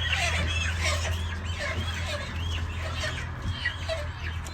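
A flock of chickens calling over one another, many short overlapping clucks and chirps, over a steady low hum.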